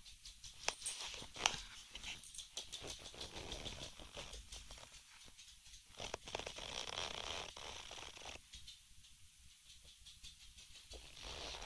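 Dog chewing and worrying a plush pig toy on a bed: a run of small clicks and ticks, then a longer stretch of rustling about six seconds in and again near the end.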